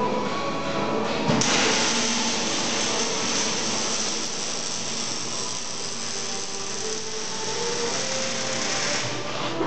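A steady hissing machine noise, like a power tool running, sets in about a second and a half in and drops away near the end.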